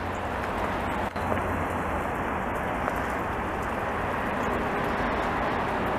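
Steady hiss of heavy rain, with a low hum that fades out about two seconds in.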